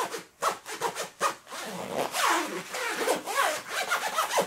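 The zipper of a quilted puffer vest is yanked rapidly up and down in short strokes, imitating DJ scratching as a zipper 'scratch beatbox'. The rasps come a few at a time at first, then follow in a fast, nearly continuous run from about a second and a half in.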